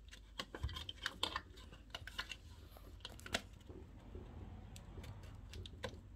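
Faint, irregular small clicks and taps of fingers handling a flat ribbon cable and its connector on the TV panel's board as the cable is pushed back into the open connector.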